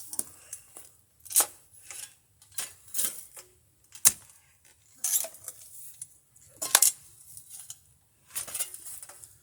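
Metal digging tool chopping into hard ground: a sharp clink every second or so, unevenly spaced, with quieter scraping of soil between strikes.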